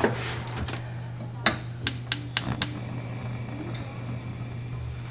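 Gas cooktop burner's spark igniter clicking, about five sharp clicks in quick succession, then stopping as the burner lights.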